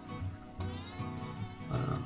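Quiet background music with sustained notes that change about every second.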